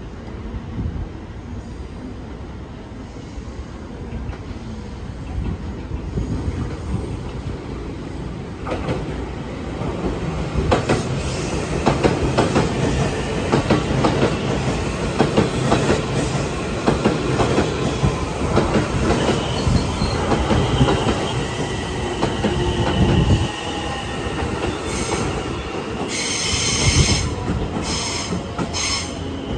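JR West 225-series and 223-series electric train running into the station: a rumble that builds with rapid clicking of wheels over rail joints, then a slowly falling squeal as it slows. A few short hissing bursts come near the end.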